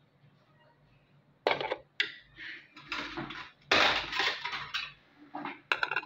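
Cookware clattering: filled moi-moi plates being set into a cooking pot, a run of clanks and scrapes starting about a second and a half in, loudest about four seconds in.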